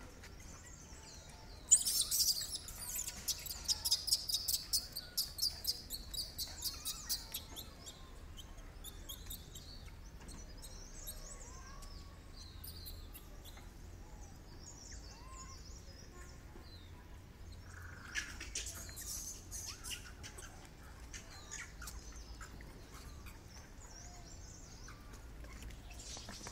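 Small birds chirping: a rapid run of loud, high chirps starts about two seconds in and lasts some five seconds, followed by scattered fainter chirps and a second burst of chatter about two-thirds of the way through.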